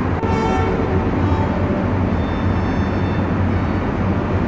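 Steady cabin noise inside an Airbus A321 airliner: the engines and airflow make a continuous rush over a low hum.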